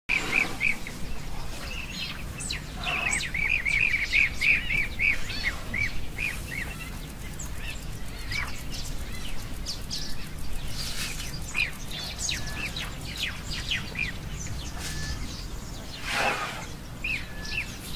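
Wild birds calling and chirping, with a quick run of repeated chirps a few seconds in, over a steady low background. A short rushing noise comes near the end.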